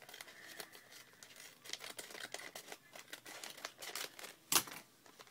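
Scissors snipping open a homemade blind bag, with the bag crinkling and rustling in the hands; one sharper crackle about four and a half seconds in.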